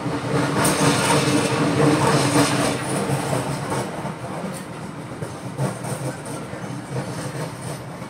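Train running on the rails, loudest with a steady hum in the first three seconds, then easing to softer running noise with a few wheel knocks over rail joints.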